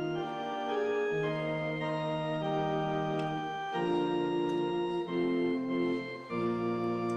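Organ playing slow, sustained chords that change every second or so.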